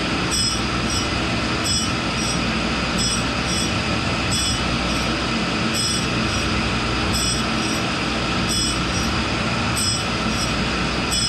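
Tool and cutter grinder running steadily, its Norton blue seeded-gel 60-grit wheel grinding a steel chuck key. A high grinding sound swells and fades about every one and a half seconds as the work is traversed back and forth under the wheel.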